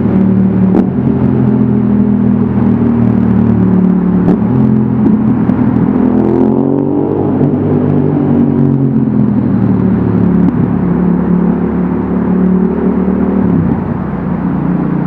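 Yamaha XSR700's parallel-twin engine through an Akrapovic exhaust, heard from the rider's seat: steady running, then a short rise in revs about six seconds in that falls back again, and the revs drop near the end as the throttle closes.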